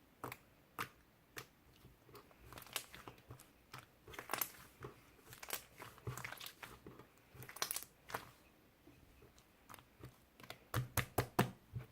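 Jelly-textured slime being squished and poked by hand, making irregular sticky clicks and pops, with a quick run of pops near the end.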